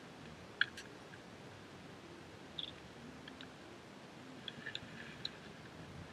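A spinning reel handled in the hands: a few light, sharp clicks, scattered and irregular, over a faint steady background noise.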